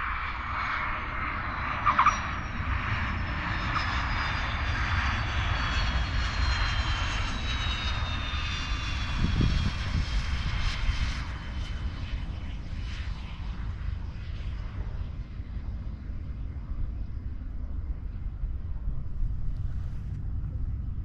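Pilatus PC-24 twin turbofan jet engines whining, the whine falling slowly in pitch and fading out by about halfway, over a steady low rumble. A short sharp knock about two seconds in.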